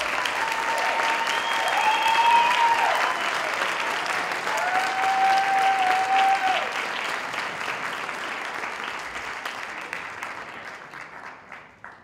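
Theatre audience applauding, with two long, high held calls from the crowd riding over the clapping. The applause then fades away over the last few seconds, dying out at the end.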